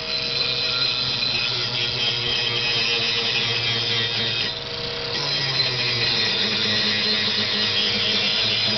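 Angle grinder running with its disc bearing on steel bar, throwing sparks: a steady motor whine under a rasping hiss of disc on metal. The grinding eases off briefly about halfway through, then bears down again.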